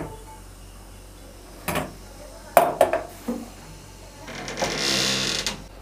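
Stainless steel Turkish double teapot clanking against its kettle and the stove grate as it is lifted off and set down: a single knock, then a quick cluster of sharp metal knocks. Near the end, about a second of rushing hiss.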